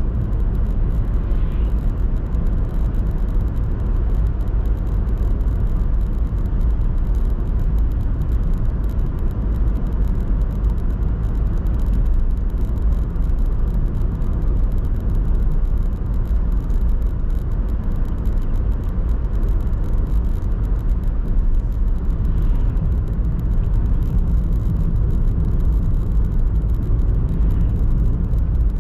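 Steady low rumble of a car driving along a paved road: engine and tyre noise at a constant cruising speed.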